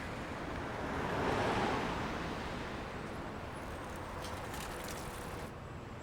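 Steady rushing background noise that swells briefly between about one and two seconds in, then settles.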